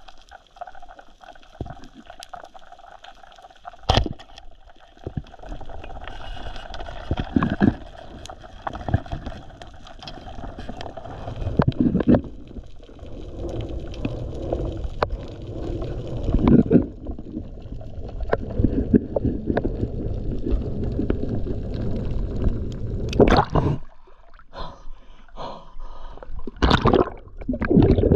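Underwater sound on a spearfisher's diving camera: water rushing and gurgling against the housing, with scattered sharp clicks and several louder gurgling surges. A faint steady hum runs under the first half.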